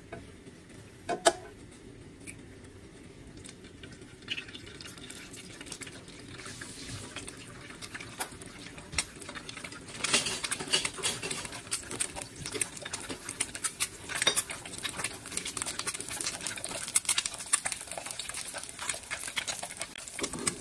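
Egg frying in hot oil in a frying pan: a sizzle with dense crackling and spitting, faint at first and much louder about halfway through. A single sharp knock about a second in.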